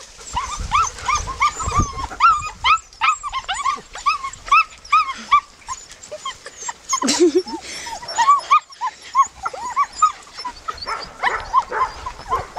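Young German shepherd puppy whining: a rapid run of short, high-pitched whimpers, about four a second, with a brief lower call about seven seconds in.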